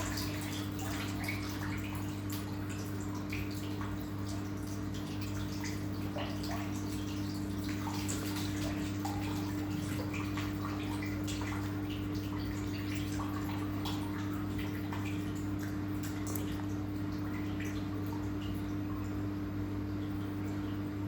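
Samsung washing machine running: a steady low electric hum with scattered small clicks and water noise from inside the machine.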